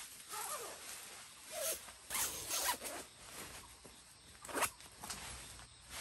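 Sleeping bag being unzipped and spread over a camp cot: a series of quick rasping swishes of zipper and fabric, the sharpest about four and a half seconds in.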